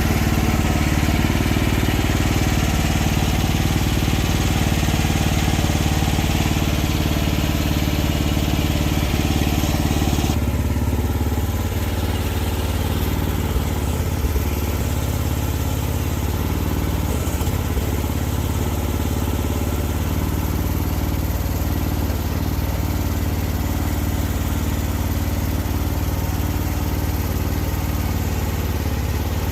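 Mini excavator engine running steadily. About ten seconds in, the sound changes abruptly: it loses its higher tones and gets slightly quieter.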